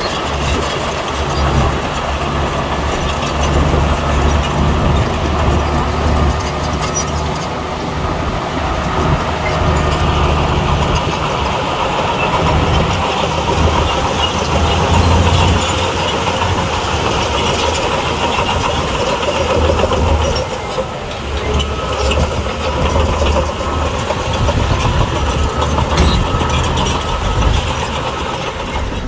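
Diesel engine of a crawler bulldozer running steadily under work, its low note swelling and easing every few seconds as the load changes.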